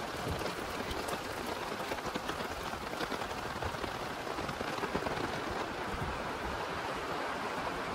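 Steady rain falling on roofs and wet, muddy ground, a dense patter of drops.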